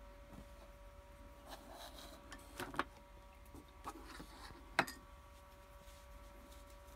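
Handling sounds from objects moved about on a countertop: a few light knocks and rubs, the sharpest knock about two-thirds of the way in, over a faint steady hum.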